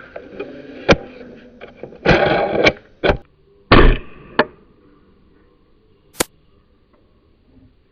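Handling noise: several sharp clicks and knocks with two short, loud scraping bursts in the first half, then one last sharp click about six seconds in.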